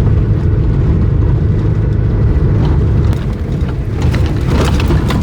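A Toyota Hilux on the move: a loud, steady low rumble of engine and road noise, with a few light rattles and crackles about three to five seconds in.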